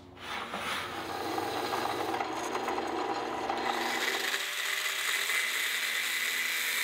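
Corded angle grinder with a cut-off wheel cutting steel pipe, a steady rasping grind. About four seconds in the sound changes: the lower, rougher part drops away and a steadier, higher whine carries on.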